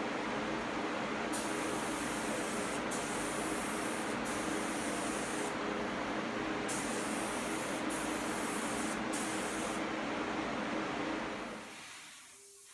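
Gravity-feed air spray gun hissing in about six short trigger passes, each about a second long, as it lays a sealer coat on a cabinet door. Underneath runs a steady humming drone that dies away near the end.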